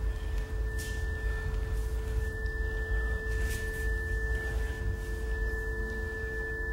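Steady pure tones, a lower one and two fainter higher ones, held without change or fading, over a low rumble.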